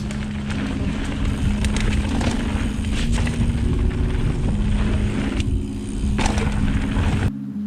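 Wind rumble on the microphone and the rattle of a mountain bike's tyres on dirt as it rolls in and rides the jumps, with a few sharp knocks along the way. Background music with held notes plays underneath, and the sound cuts off abruptly near the end.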